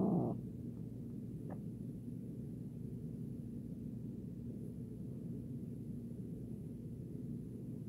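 A domestic cat's drawn-out yowl cuts off just after the start, leaving a steady low background noise for the rest.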